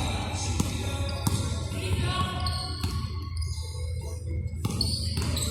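Basketball dribbled on a court: a run of bounces about every two-thirds of a second, thinning out after about two seconds.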